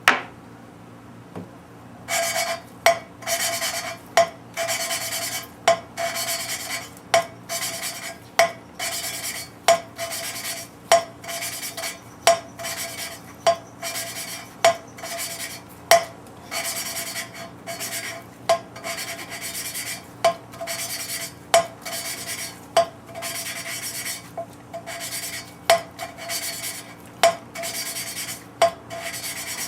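Valve lapping with fine grit compound: a gritty rasp as the Ford 302 intake valve is twisted back and forth against its seat, with a sharp tick at each stroke about every second and a quarter. It starts about two seconds in.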